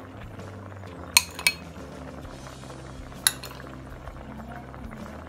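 A metal spoon clinks three times against a steel pressure-cooker pot while lemon juice is spooned over rice: two quick clinks about a second in, and one more past the middle, over a low steady hum.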